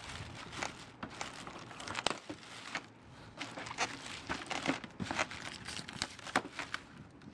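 Clear plastic wrapping crinkling with irregular crackles as an RC model plane's fuselage inside it is handled and pulled out of its cardboard box.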